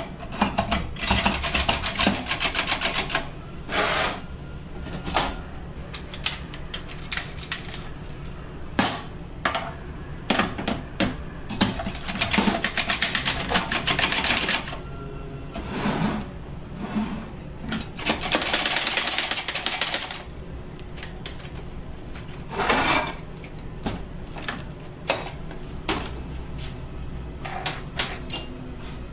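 Clutch drums and steel clutch plates of a Mercedes 722.9 automatic transmission clattering as they are turned and worked down onto one another by hand. There are three stretches of rapid metallic clicking, a few seconds each, with scattered single knocks of metal parts between them.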